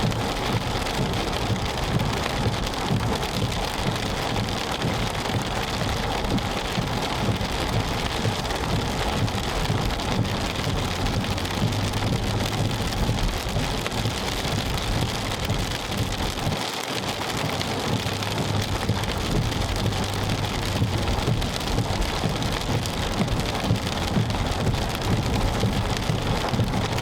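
Heavy rain falling steadily on a car, a dense, even hiss with no letup.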